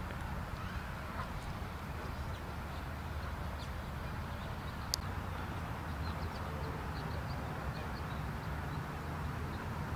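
Outdoor park ambience: a steady low rumble under a faint hiss, with faint short bird chirps scattered about six to eight seconds in. A single sharp click comes about five seconds in.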